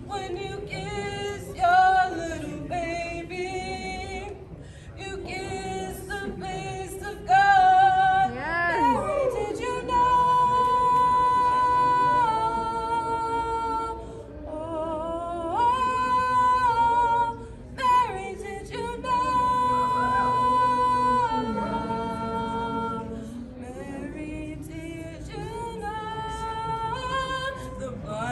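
Karaoke singing: one voice singing into a microphone, with a wavering note about eight seconds in and several long held notes after it.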